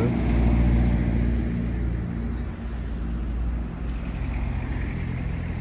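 A motor vehicle's engine running steadily with a low-pitched hum.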